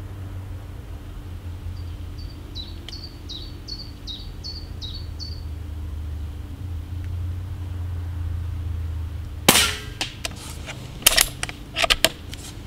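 A single shot from a Benjamin Fortitude Gen2 .22 PCP air rifle with a shrouded barrel, about three-quarters of the way through, followed by several loud clicks and knocks. Earlier a bird sings a short run of about eight quick repeated chirps over a steady low hum.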